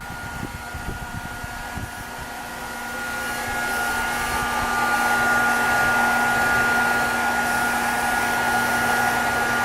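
Hair dryer blowing on a cat's wet fur: a steady rushing noise with a high whine that starts suddenly and grows louder over the first few seconds. A few low knocks sound in the first two seconds.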